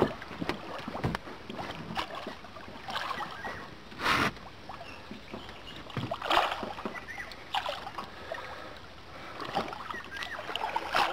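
Water splashing and sloshing against a small boat's side as a large wels catfish is held alongside, with scattered knocks and thuds on the hull; the loudest knock comes about four seconds in.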